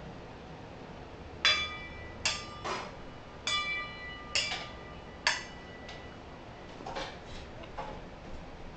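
Metal kitchen utensils banged together, six ringing clanks followed near the end by three softer taps.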